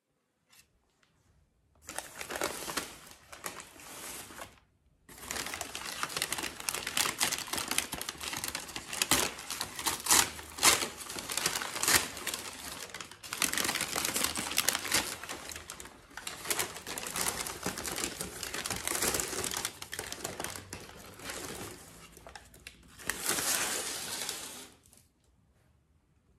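Wrapping paper being pulled off a potted plant by hand, rustling and crinkling. It starts about two seconds in, breaks off briefly soon after, and stops shortly before the end.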